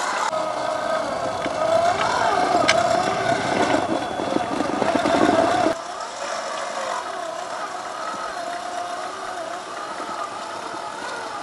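Traxxas TRX-4 RC crawler's electric motor and geared drivetrain whining, the pitch wavering up and down with the throttle as it crawls. About halfway through the sound drops suddenly to a quieter stretch of the same whine.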